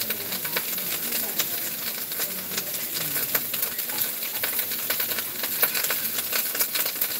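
Food frying in a pan: a steady sizzle with irregular sharp crackles.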